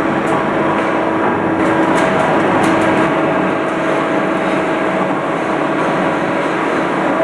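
Steady running noise of a hydraulic sheet-metal machine, a constant hum with a few faint clicks in the first three seconds.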